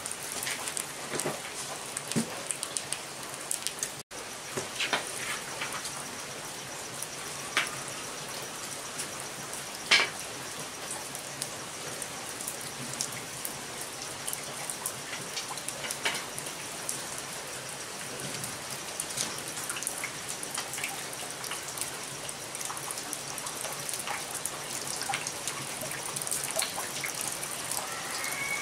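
Steady rain hiss, with scattered sharp clicks and knocks from a small open wood fire as sticks are fed into it; the loudest knock comes about ten seconds in.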